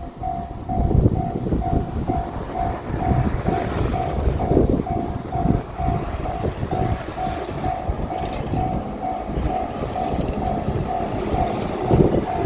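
Japanese level-crossing bell ringing in steady repeating pulses, about two a second, as a diesel limited-express train rumbles past over the crossing.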